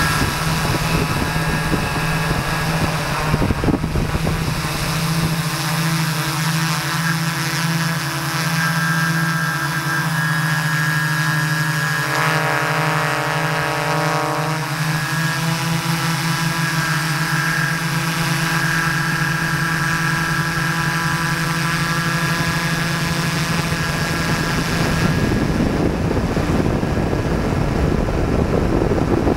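Multirotor drone's electric motors and propellers buzzing steadily in flight, heard from the craft's own camera. Near the end the steady buzz gives way to a louder rushing noise.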